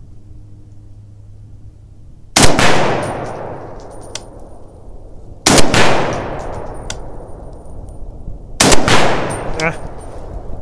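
Three rifle shots about three seconds apart from a semi-automatic JP Rifles LRP-07 in .260 Remington fitted with a large muzzle brake, each a sharp crack trailing off over about two seconds.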